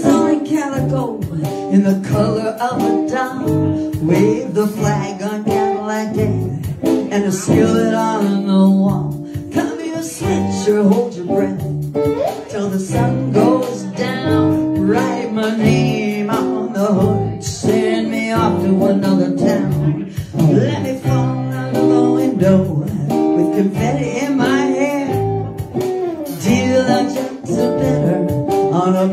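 Live band music: a guitar played with a singer's voice over it, amplified through the stage speakers.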